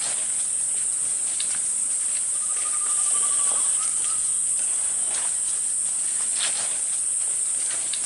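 Forest insects keep up a steady high-pitched drone. A little over two seconds in, a bird gives a short trill of rapid, even notes, and footsteps rustle and crunch in the leaf litter.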